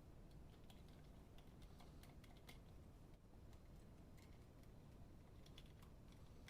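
Faint, scattered light clicks and taps, coming in irregular clusters, over a quiet background hum.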